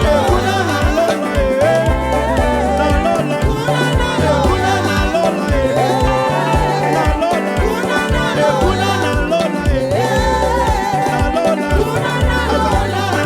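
Live worship band music: a steady bass and drum groove under a gliding lead melody, in an upbeat African-style gospel feel.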